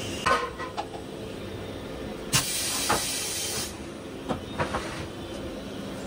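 A steel tyre lever clanks against the wheel on a tyre changer a few times with short metallic ringing, then a burst of compressed-air hiss from the pneumatic tyre changer lasts over a second, followed by a few knocks as the wheel is lifted off the machine.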